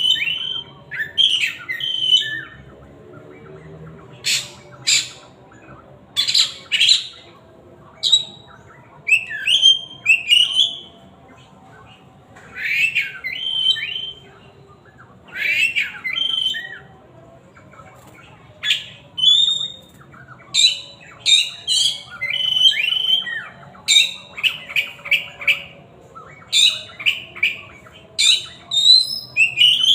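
Oriental magpie-robin (kacer) singing loudly: short phrases of clear whistles mixed with harsh, scratchy notes, coming in bursts every second or two with brief pauses between.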